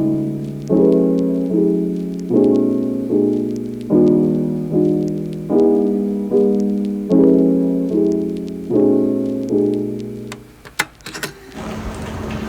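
Soft piano background music: slow chords struck about every three-quarters of a second, each left to fade. The music stops about ten seconds in, and a few sharp clicks and light knocks follow over faint noise.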